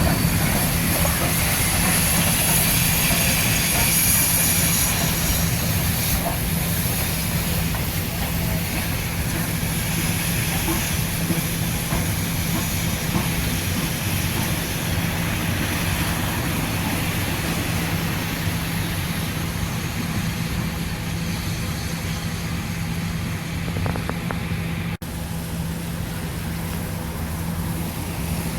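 Train rolling along the track: a steady rumble and hum, with high-pitched wheel squeal over the first several seconds. The sound drops out for an instant about 25 seconds in.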